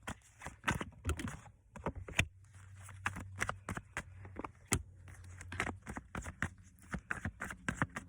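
Tarot cards being shuffled and handled: irregular sharp clicks and slaps at an uneven pace, with a low steady hum coming in about two seconds in.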